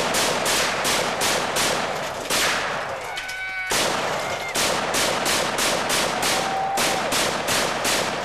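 Rifle fired in rapid succession, about three shots a second, each shot a sharp crack. The firing breaks off for a little over a second near the middle, then resumes.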